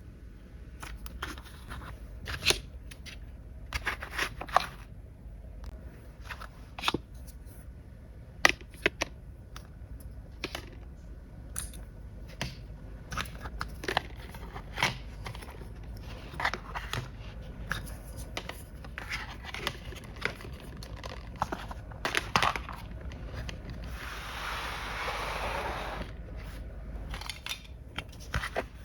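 Small plastic toy parts and packaging being handled: a string of irregular sharp clicks and taps, with a short rustling, tearing noise near the end.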